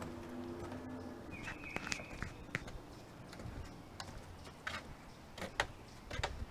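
Footsteps walking along a trail, a series of irregular short knocks, with a brief high-pitched animal call about one and a half seconds in.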